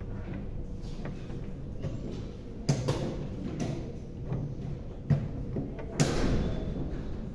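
Sharp clicks and knocks of plastic chess pieces being set down and handled on the tables, about five in a few seconds, the loudest about six seconds in, over a steady low room hum.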